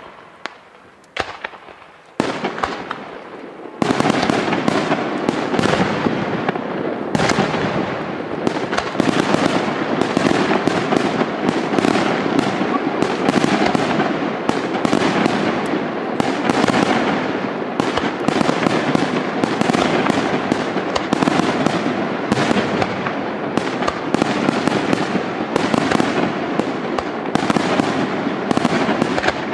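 Fireworks display: a few separate bangs, then from about four seconds in a dense, continuous barrage of rapid bangs and crackling.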